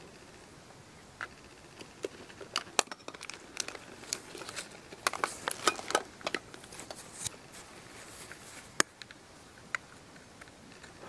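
Plastic bags and food packaging crinkling as they are handled and rummaged through, in irregular bursts of sharp crackles.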